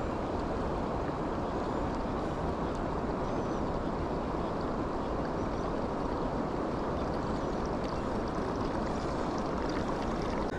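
Steady rushing of flowing river water, an even noise with no breaks or distinct events.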